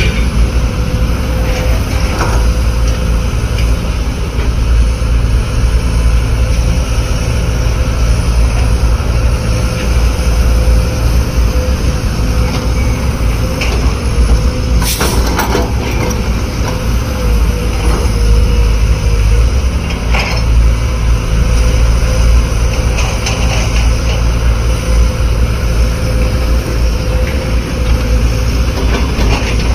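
Heavy construction machine's engine running with a steady low rumble, broken by a few short knocks, the strongest about fifteen seconds in.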